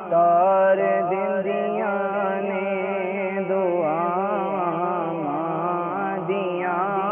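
A man singing a Punjabi naat, drawing out long wavering notes that bend up and down in pitch.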